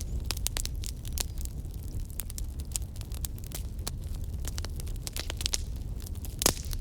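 Bonfire burning: irregular crackles and pops over a steady low rumble of the flames, with one louder pop near the end.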